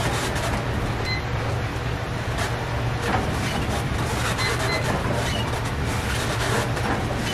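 A steady low drone with an even hiss over it, and a few faint knocks.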